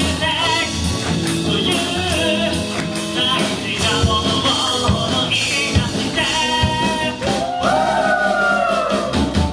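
Live band playing a song with vocals through a club PA, singing over a steady beat; near the end the singer holds one long note that bends down as it ends.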